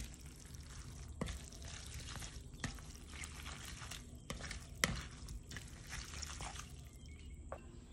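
Wet rice noodles, fish and dressing being tossed and mixed in a metal bowl, a sloppy, squelching sound. Several sharp clinks of the utensil against the bowl come through it, the loudest about five seconds in.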